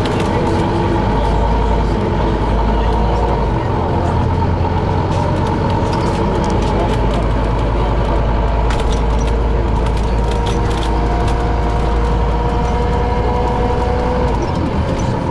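Inside a moving city bus: steady engine and road rumble with a steady whine from the drivetrain, and light rattles from the cabin.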